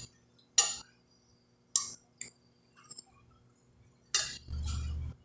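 A metal fork clinking on a glass plate while eating: several short sharp clinks spaced about a second apart, then a louder knock about four seconds in with a brief low rumble after it.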